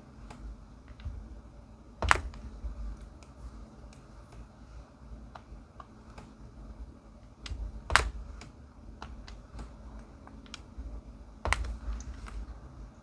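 Light, irregular clicking and tapping from diamond painting: a drill pen picking up resin drills and pressing them onto the canvas. Louder sharp clicks with a dull thump come about two seconds in, about eight seconds in and near the end.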